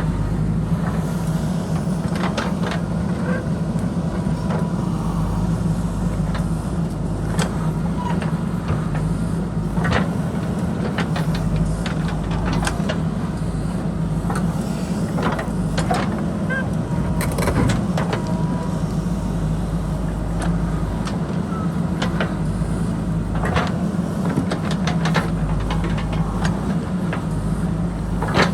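A JCB backhoe loader's diesel engine runs steadily under working load, with scattered sharp knocks and clacks throughout.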